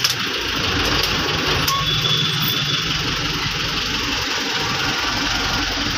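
A van's engine running steadily at low speed, heard from inside the cab, along with road and cabin rattle.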